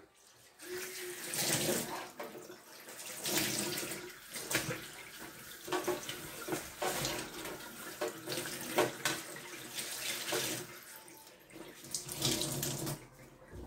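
Water running from a tap into a stainless steel kitchen sink, splashing unevenly as a cloth is scrubbed and rinsed under the stream. It starts just under a second in and dies away near the end.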